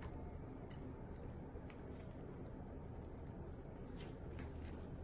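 A metal spoon spreading cooked ground beef over a corn tortilla on a ceramic plate: faint, scattered soft scrapes and light clicks.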